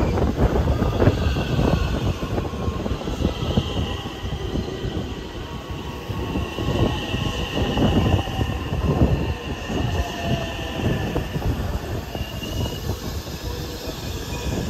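JR West 225 series electric train pulling in alongside a platform: steady wheel rumble with repeated knocks over the rail joints. A high, thin wheel squeal comes in about four seconds in and holds for several seconds as the train slows, with a short return near the end.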